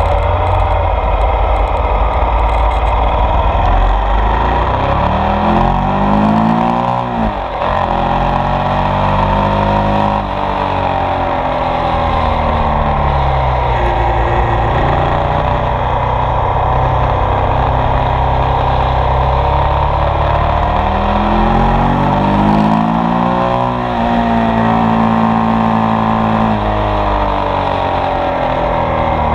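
Ducati Multistrada 1200 S DVT's Testastretta V-twin under way. The revs climb twice, peaking about seven seconds in and again near the end, and drop sharply each time, over a steady rush of wind and road noise.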